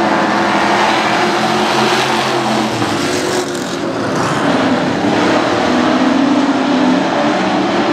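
Engines of a pack of dirt-track pro trucks racing together, a loud steady drone of several engine notes at once, dipping briefly about three seconds in.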